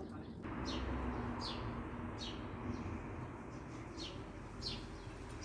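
A small bird chirping: a string of short, high chirps, each falling in pitch, about one every three-quarters of a second, over a steady hiss.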